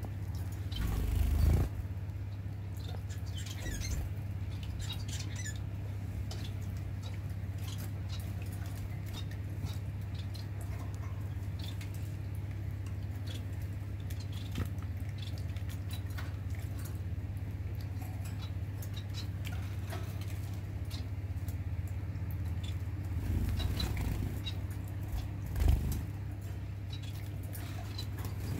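Pet drinking fountain running: a steady low pump hum under trickling water, with short, high chirps from Bengalese finches scattered throughout. A rustle and bump about a second in, and a couple of louder bumps near the end.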